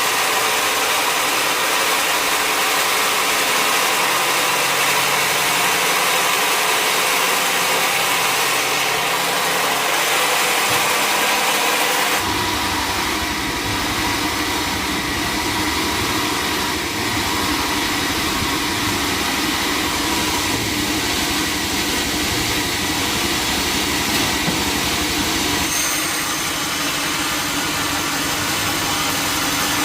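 Sawmill machinery running steadily with a continuous mechanical drone and hiss. A deeper rumble joins about twelve seconds in.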